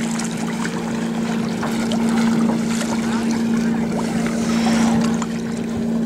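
A steady engine hum holding one pitch throughout, with light water splashes from kayak paddle strokes.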